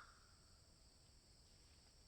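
Near silence in a pause between crow caws: the tail of a caw fades at the very start, then only a faint steady high hiss and low rumble of the background remain.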